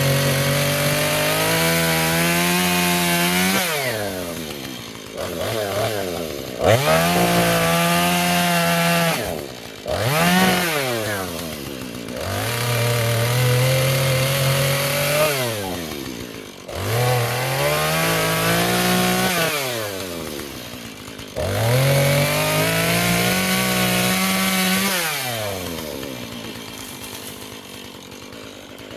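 Two-stroke chainsaw bucking a pine log: the engine is run up to full throttle and held for a few seconds, then drops back toward idle, over and over, five or six times. Near the end it falls to idle and fades.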